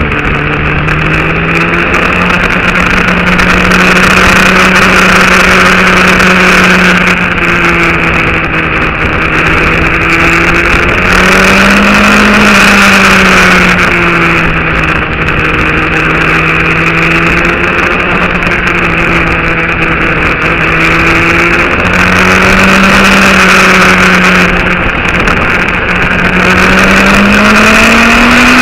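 Motorcycle engine running steadily while riding, its pitch rising and falling gently every few seconds with speed, over a steady rush of noise.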